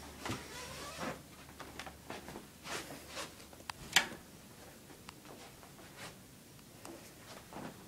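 Faint rustling and scattered small clicks from a handheld iPod being moved around while it records, with one sharper click about four seconds in.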